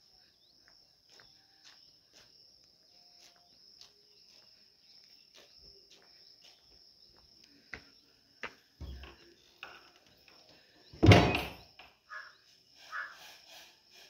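A wooden door with a steel sliding bolt is handled and pushed open: metal clicks, then one loud knock about eleven seconds in. Soft footsteps come first, and a steady high insect trill runs underneath.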